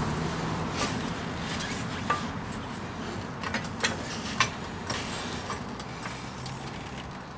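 A floor jack pushing a tire up against a trailer frame to break its bead from the beadlock rim: a few scattered sharp clicks and taps, over a low steady hum.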